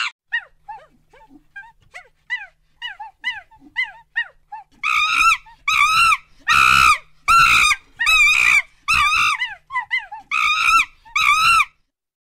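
Monkey calls: a string of short, high-pitched squeals, each bending up and down in pitch. They are faint and scattered at first, then from about five seconds in come louder and longer, about two a second, and stop shortly before the end.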